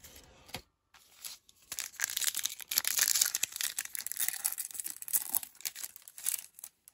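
A foil trading-card pack wrapper being torn open and crinkled. It is a dense, papery rustle that starts about two seconds in and dies away near the end.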